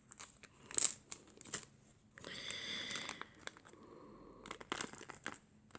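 Plastic packaging crinkling and rustling, with light clicks of small pieces being handled and slipped back into it.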